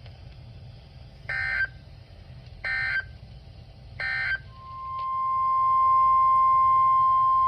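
Three short bursts of NOAA Weather Radio SAME data tones, the end-of-message signal, about a second and a half apart. Then the 1050 Hz weather radio warning alarm tone comes in about four and a half seconds in, swelling up over a second and holding steady, heralding the next alert, a tornado warning.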